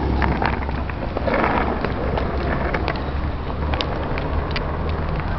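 Steady low rumble of wind on the microphone, with scattered sharp clicks and knocks from a skateboard rolling on concrete.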